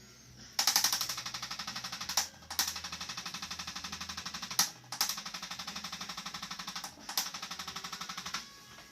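Handheld chiropractic adjusting instrument firing rapid percussive thrusts into the upper thoracic spine, about ten taps a second. It goes in four bursts of roughly two seconds each, with short pauses between them, and each burst opens with a louder stroke.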